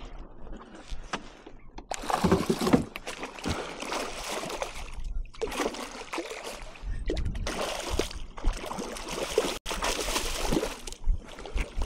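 Water sloshing and splashing in irregular bursts.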